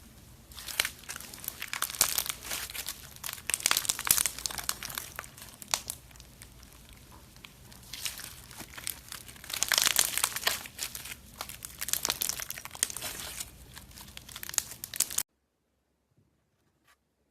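Slime being squeezed and worked by hand, making dense crinkling, crackling sounds in two stretches. It cuts off abruptly near the end.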